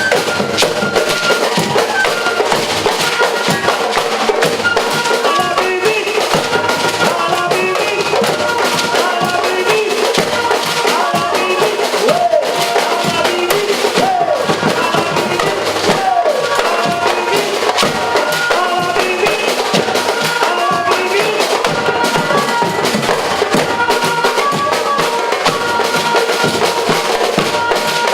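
Batucada-style percussion band playing live: many drums keep a dense, driving rhythm, with short pitched notes repeating over the drumming.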